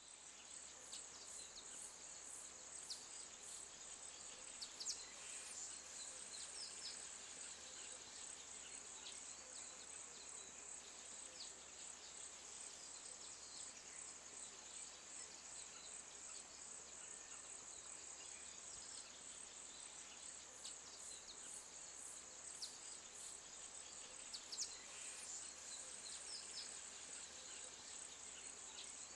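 Faint African bush ambience: a steady high insect drone with trains of rapid pulsing chirps, and scattered short bird calls.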